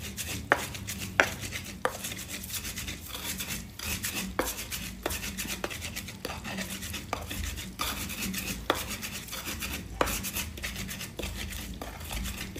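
Stone pestle (ulekan) grinding garlic, turmeric, coriander seed and coarse salt into a paste in a stone mortar (cobek): a gritty scraping and pressing, with sharp knocks of the pestle against the mortar about one and a half times a second.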